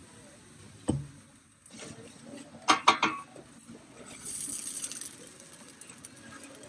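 Kitchen utensils knocking against a crêpe griddle: one sharp knock about a second in, then a quick run of clacks around three seconds. After that comes a soft hiss as a wooden crêpe spreader is drawn through the batter on the hot plate.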